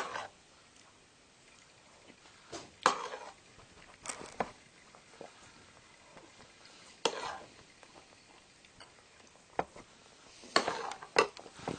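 Someone eating soup with a spoon: a few short spoon clinks against the bowl and slurps, spaced out, with several coming close together near the end.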